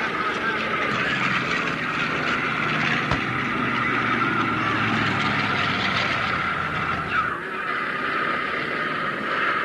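Piston aircraft engines droning as World War II warbirds fly past, over a steady rushing noise. A deeper engine hum comes in about three seconds in, at a sharp click, and drops away after about seven seconds.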